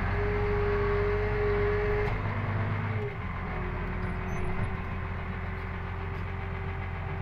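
McCormick G 135 Max tractor engine running, heard from inside the cab, with a steady whine over it while the rear reversible plough is raised out of the ground. About two to three seconds in, the engine sound eases and the whine drops a little in pitch.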